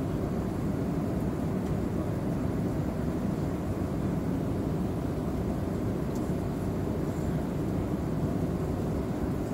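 Steady cabin noise inside an Airbus A320-232 on approach: an even, low rumble of the IAE V2500 engines and the air rushing past the fuselage, heard from a seat over the wing.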